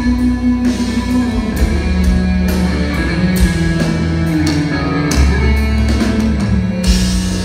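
Progressive metal band playing live: distorted electric guitar, bass and a drum kit, heard from the audience in the hall.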